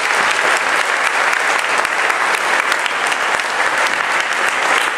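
Audience applause: many hands clapping together at a steady level.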